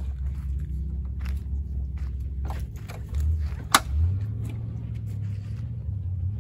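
Chevrolet Z71 pickup's engine running at idle, a steady low rumble. A few light clicks sound over it, with one sharp knock a little under four seconds in.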